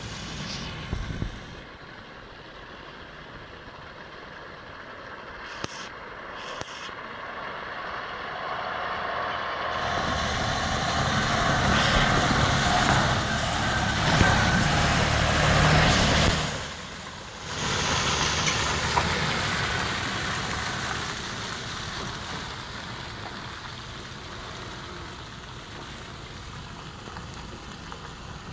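Heavily loaded multi-axle goods lorry's diesel engine and tyres on a wet, muddy road, growing louder as it approaches and loudest as it passes close about halfway through. After a brief sudden dip, the sound fades gradually as it moves off.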